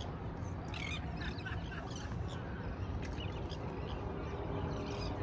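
Scattered short animal calls, squawks or barks, over a steady low background rumble.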